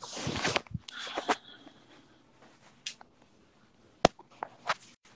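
Handling noise from a phone being moved about: a burst of rustling with clicks at the start, then a sharp knock about four seconds in followed by a few lighter clicks.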